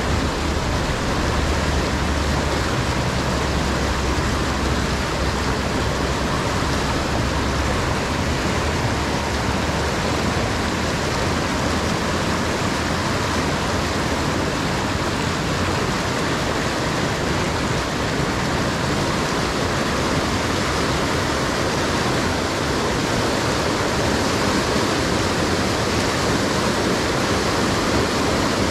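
River rapids rushing over and around boulders, a steady, unbroken roar of white water close to the microphone, with an added low rumble for roughly the first eight seconds.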